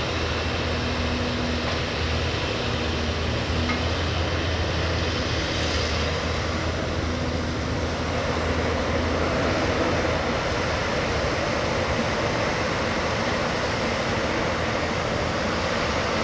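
Backhoe loader's diesel engine running steadily with a continuous low drone and mechanical noise.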